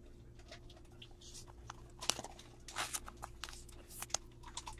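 Faint plastic rustles and small clicks as a trading card is handled and slid in a clear plastic card sleeve, with scattered short crinkles through the second half.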